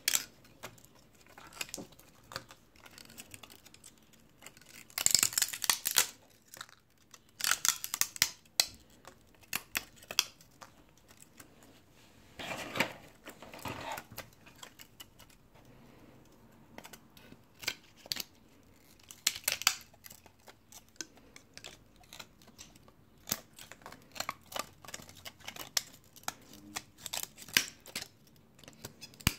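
Rebel II HD 3D printer running a print at 70 mm/s: irregular clicking and ticking from its moving mechanics, with a few short rasping bursts.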